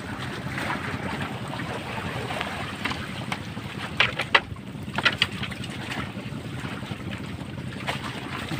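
Steady wind and sea noise on an open-water fishing platform, with a few sharp knocks about four and five seconds in.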